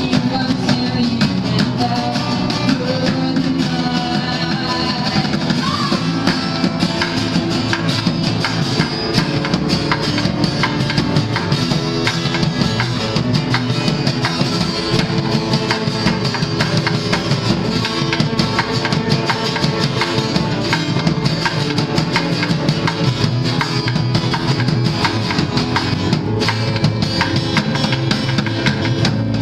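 Live acoustic band music: guitar played over drums and percussion keeping a steady beat.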